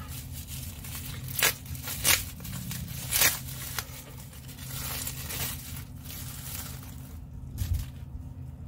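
Plastic packaging rustling and crinkling as a lighting kit's circuit board is unwrapped and handled, with several sharp crackles in the first few seconds and a low thump near the end. A steady low hum runs underneath.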